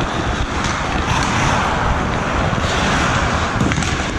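Ice hockey practice on the rink: a steady rush of skate blades gliding and scraping on the ice, with a few sharp clicks near the end.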